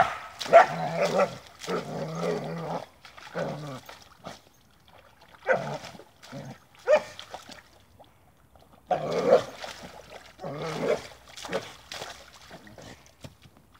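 A border collie vocalising in bouts of whining, grumbling sounds while it wallows and splashes in a muddy pond, with short gaps between bouts.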